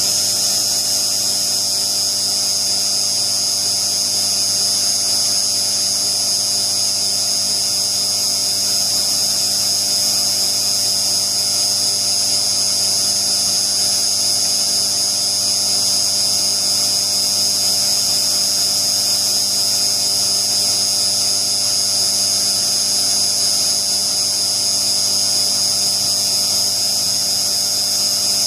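Novakon Torus Pro CNC mill spindle running steadily at about 6,000 RPM while a small end mill cuts narrow slots, with an air blast hissing to clear the chips. A steady high whine and hiss that does not change.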